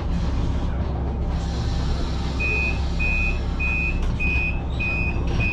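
City bus standing with its engine running, a steady low hum. About two and a half seconds in, a high electronic beep starts repeating evenly, a little under two beeps a second: the bus's warning that its doors are about to close.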